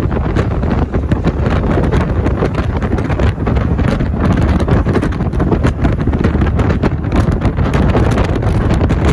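Wind buffeting the microphone of a camera filmed from a moving vehicle, a loud, dense rumble that flutters rapidly, with the vehicle's road noise underneath.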